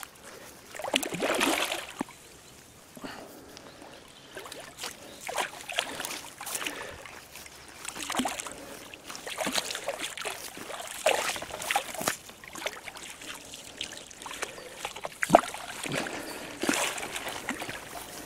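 A hooked carp thrashing and splashing at the water's surface in irregular bursts as it is played in to the bank and netted. One sharp slap near the end is the loudest.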